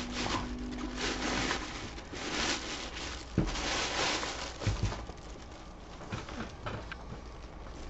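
Black fabric drawstring bag and clear plastic bag rustling and crinkling in uneven bursts as a football helmet is pulled out, with a couple of light knocks around the middle.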